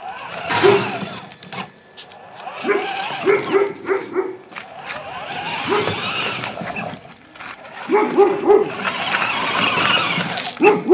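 A dog barking in quick runs of several barks, with short pauses between the runs.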